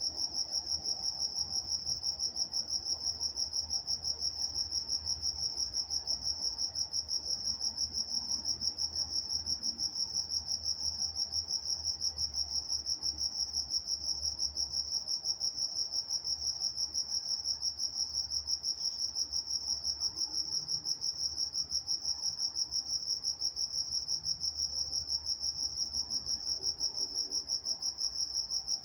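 Crickets chirping in a steady chorus: one high, even pitch pulsing rapidly and without a break.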